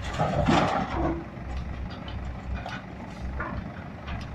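Mahindra 415 DI tractor's diesel engine running with a steady low rumble, louder and noisier for about the first second.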